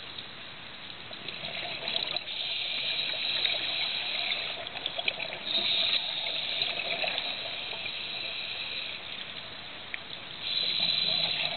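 Scuba regulator underwater: exhaled bubbles rushing out in three long bursts, with a quieter hiss and bubbling between them.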